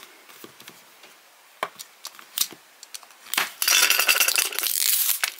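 Blind-box packaging being handled and opened: a couple of light clicks and taps of the small cardboard box, then about three and a half seconds in a loud stretch of crinkling and tearing as the packaging is torn open.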